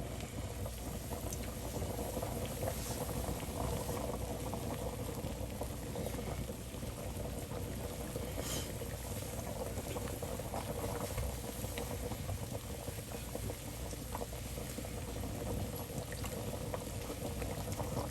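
Liquid bubbling at a steady boil on a stovetop, a continuous crackly bubbling with no breaks.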